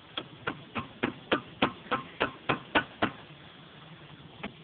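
Hand hammer striking about eleven times in a quick, even rhythm, roughly three blows a second, then one more blow near the end.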